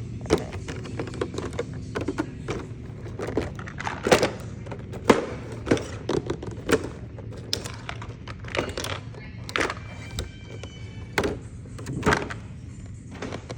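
Irregular clicks and knocks of small plastic toys being handled and set down, a few sharper than the rest, over a steady low hum.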